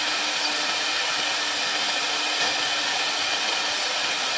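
CNC wood lathe carving a turned wooden baluster: the high-speed router spindle runs steadily as it cuts the wood, giving an even, high-pitched whirring hiss.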